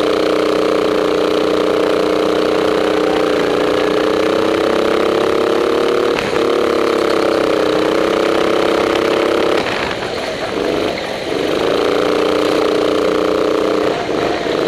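Go-kart engine running hard at high revs. Its pitch drops for about a second, around ten seconds in, then climbs back, with another short dip near the end.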